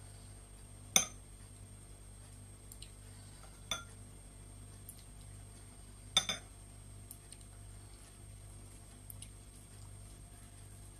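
A metal spoon clinking against a glass bowl and a plate as soup is spooned over rice: a sharp clink about a second in, another near four seconds, a quick double clink around six seconds, and a few faint ticks between.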